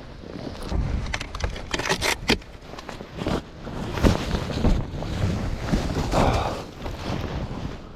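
Strong wind buffeting the microphone in a snowstorm, a gusting low rumble and hiss that swells and fades, with a quick cluster of clicks or knocks about two seconds in.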